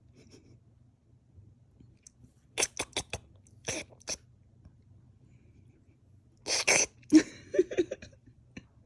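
A pet making short sneeze- or cough-like snorts while being groomed: a quick run of four about two and a half seconds in, two more single ones soon after, and a longer cluster near the end.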